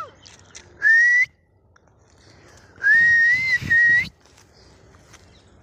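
A person whistling twice: a short rising whistle about a second in, then a longer one about three seconds in that rises and wavers up and down before cutting off.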